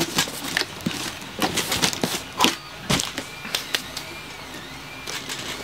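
Cardboard box and handling knocks and rustles, a quick run of sharp clicks. From about four seconds in, a faint high whine rises and falls over and over, about every 0.7 s, typical of an Ender 3 3D printer's stepper motors moving the print head back and forth.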